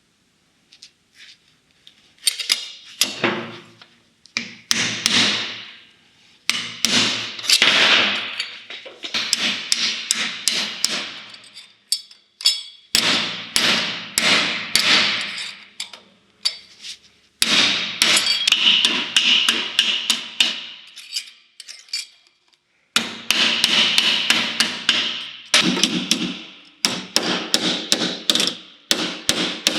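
Hammer striking sheet metal during rust and body repair on a car panel, in quick runs of ringing blows, several a second, with short pauses between runs.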